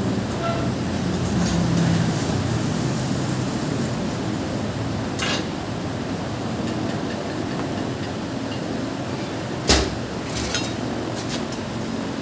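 Steady kitchen background noise with a few sharp clanks of pots and lids, one about five seconds in and a louder one about ten seconds in.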